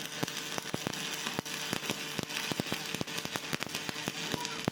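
Stick-welding arc crackling steadily with many irregular sharp pops, over a faint steady hum.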